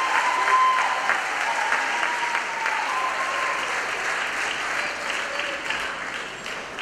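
Audience applauding, with voices cheering over the clapping; the applause slowly dies down near the end.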